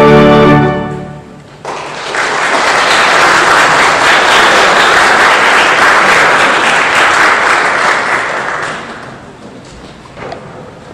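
A church organ's closing chord is released in the first second and dies away in the church's reverberation. Applause follows for about seven seconds and fades near the end.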